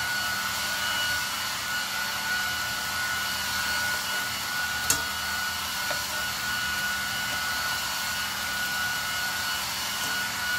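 A steady hiss with a faint high whine runs throughout. About five seconds in, a fork strikes the skillet once with a sharp metal click.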